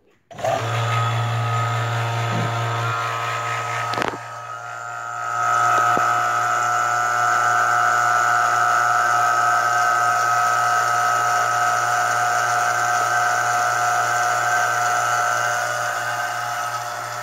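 Electric rotary-vane vacuum pump switching on and running steadily, pulling vacuum on a carbon-fibre resin-infusion bag through a resin catch pot. It makes a low hum with a steady high whine; about four seconds in there is a knock, and the whine then grows louder.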